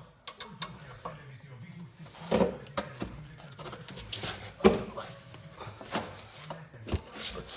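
Brake parts and tools clinking and knocking together as they are handled, with a few sharp knocks. A low voice murmurs underneath.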